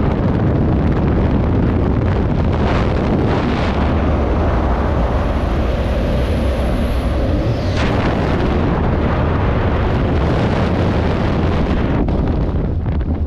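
Loud, steady rush of freefall wind buffeting a helmet-mounted camera's microphone, shifting a little as the flyer turns and rolls.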